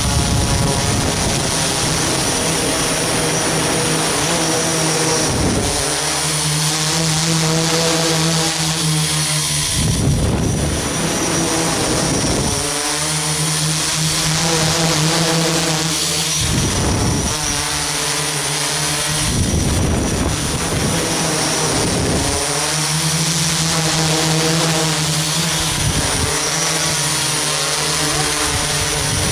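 Multicopter's electric motors and propellers whining steadily at a constant pitch, broken every few seconds by brief rushes of noise.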